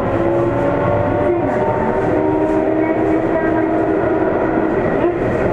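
Sendai Subway 1000 series train running, heard inside the car: the Mitsubishi IGBT-VVVF inverter and traction motors whine in several steady tones over the rumble of wheels on rail.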